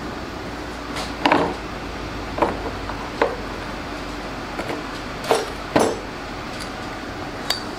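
About seven scattered light knocks and clinks of tools and parts being handled at the workbench, over a steady low hum.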